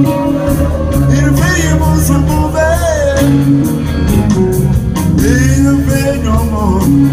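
Live rock band playing: an electric guitar holds long sustained notes that bend in pitch, over a bass line and drums with regular cymbal strokes.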